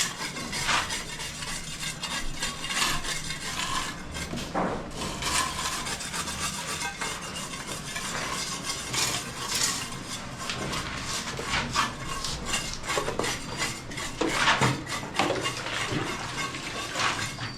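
Steel plastering trowels scraping and spreading wet cement render on a concrete column, with frequent irregular clinks and taps of metal on hard surfaces.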